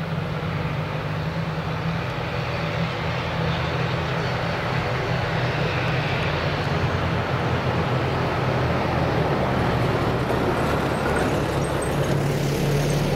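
ATR 72-600 turboprop taxiing, its two Pratt & Whitney PW127M engines and propellers giving a steady low drone over a rushing turbine noise that grows gradually louder.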